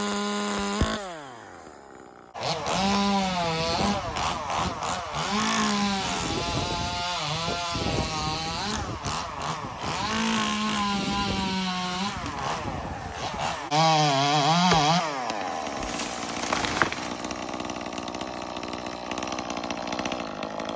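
ECHO CS-2511T top-handle two-stroke chainsaw. It runs at high revs and drops off about a second in, then is revved again and again, its pitch rising and falling. Near the middle there is a short loud burst at a lower pitch.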